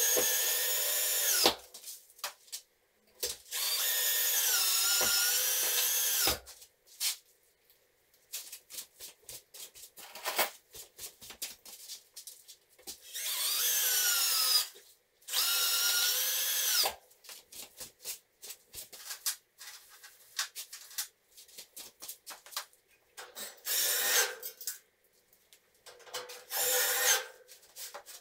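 Cordless drill running in about six bursts of one to three seconds while metal drywall profiles are fixed to a wall; its motor whine rises and falls as the trigger is squeezed and released. Short clicks and taps come between the bursts.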